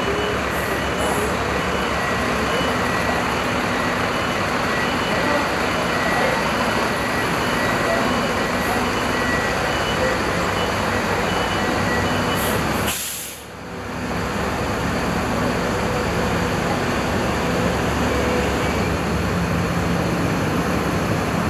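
Steady machinery and engine din on a ferry's enclosed vehicle deck, with a faint high-pitched beeping through the first half and a brief dip in the noise about two-thirds of the way in.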